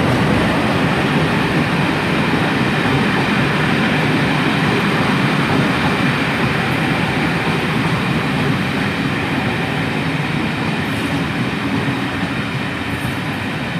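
Class 47 diesel locomotive hauling a train of Mark II coaches into the station: a loud, steady mix of engine rumble and rail noise that eases slightly near the end.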